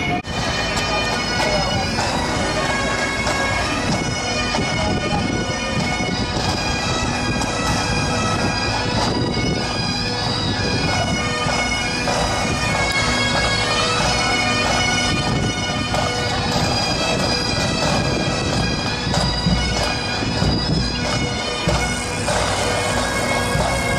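Great Highland bagpipes of a marching pipe band playing a tune, the chanter melody moving over steady drones.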